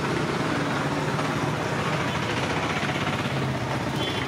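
Batter-coated brinjal bajji deep-frying in a large wok of hot oil: a steady sizzle over a low, steady rumble.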